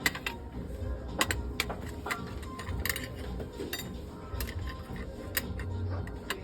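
Dishes and glassware clinking now and then as they are picked up and set down, about a dozen sharp, irregular clinks, over background music.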